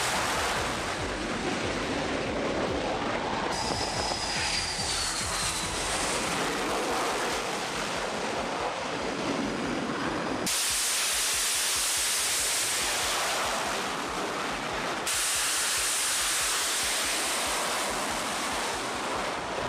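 F/A-18 Super Hornet jet engines on a carrier flight deck: a loud, steady rush of engine noise that changes suddenly a few times, with a falling whine a few seconds in as a jet passes.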